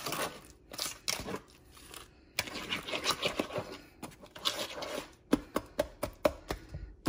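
Wire whisk beating a thick butter, sugar and egg-yolk mixture in a plastic bowl: quick, irregular scraping and clicking strokes, with a brief pause about two seconds in.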